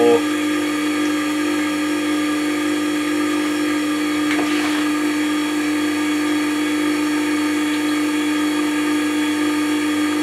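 Record Power WG250 wet stone sharpener's electric motor running with its leather honing wheels turning: a steady, even hum that does not change.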